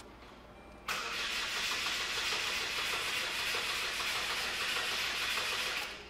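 The starter cranks a 2006 Saturn ION's 2.2-litre four-cylinder engine. It starts suddenly about a second in, turns over steadily for about five seconds without catching, and stops near the end. It is cranked for an intake-pulse compression test of a misfire, which points to cylinder 3 leaking compression.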